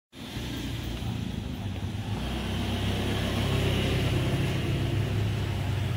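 Motorcycle engine running with a steady low hum, growing louder over the first few seconds as it rides toward and past the microphone, over street background noise.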